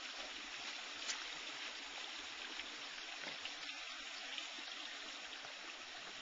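A creek flowing steadily, with one faint click about a second in.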